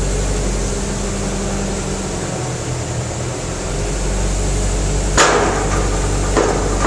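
Steady low machine hum, with two sharp knocks about a second apart near the end.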